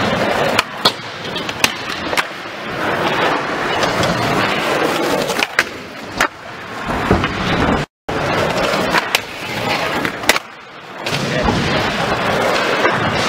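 Skateboard wheels rolling on a smooth floor, with sharp clacks of the board popping and landing several times.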